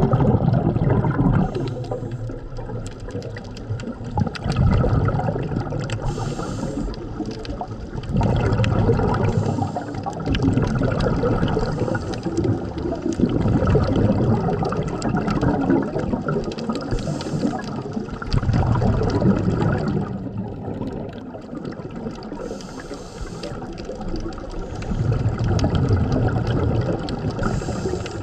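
Scuba regulator breathing underwater: a bubbling rush of exhaled air every four to five seconds, each lasting about two seconds, with a fainter hiss between some of them.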